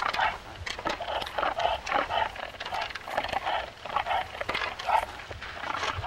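Reindeer stags sparring in the rut: antlers clacking together irregularly, with short animal grunts repeated throughout.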